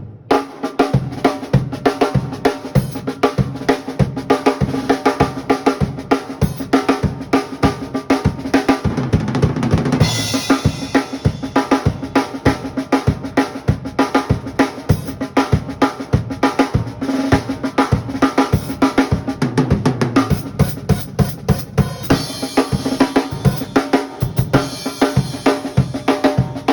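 A drum kit playing a steady beat of kick and snare over sustained pitched instrument tones, with a cymbal crash about ten seconds in.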